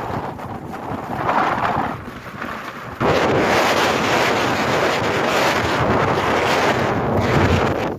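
Wind gusting across the microphone, with a shiny plastic rain cape flapping and rustling in it; the wind jumps suddenly louder about three seconds in and stays strong.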